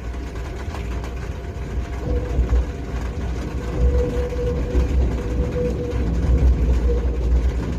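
Electric train passing a level crossing with a steady low rumble. A faint whine joins it about two seconds in and fades near the end.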